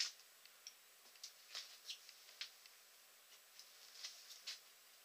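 Faint, irregular small clicks and ticks, about nine spread over a few seconds, the first one the loudest, over quiet room tone.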